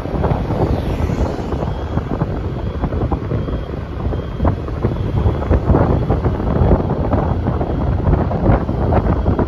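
Heavy wind buffeting on the microphone of a moving vehicle, a constant gusty rumble over road and traffic noise.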